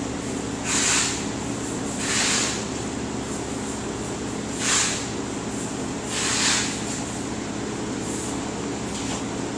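AIT 7300IJO Sport rotary drum dye-sublimation transfer press running with a steady hum, broken by short hisses at irregular intervals, about every one to two seconds.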